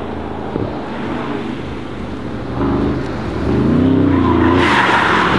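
Mercedes-AMG S-Class Cabriolet accelerating away. Its engine note rises in pitch from about two and a half seconds in and turns loud about a second later.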